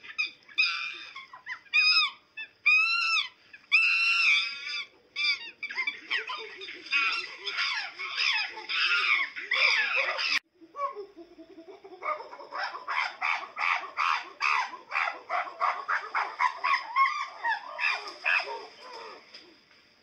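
High-pitched animal calls: a few arching squeals, then a dense tumble of calls. After a sudden break, rapid chattering follows at about four calls a second.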